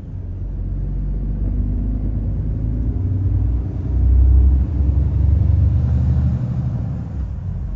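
Lorry's diesel engine and road rumble heard inside the cab as the truck drives along, a low steady drone that swells louder for a couple of seconds midway.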